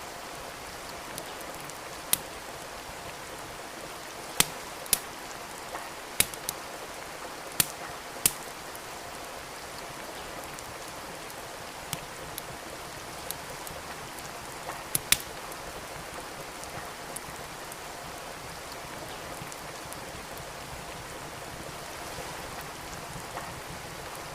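Steady rain hiss with a wood fire crackling over it: sharp, irregular pops, a cluster of them in the first half and only a few later.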